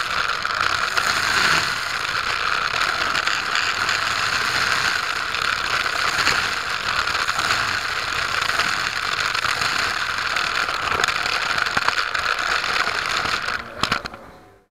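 K'NEX roller coaster train rattling steadily along its plastic track, heard from a camera riding on the front car. The sound drops away quickly just before the end.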